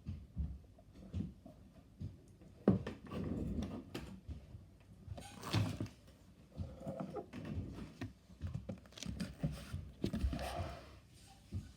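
Irregular soft thumps and handling noises in a small room, with a few louder knocks about three, five and a half, and ten seconds in.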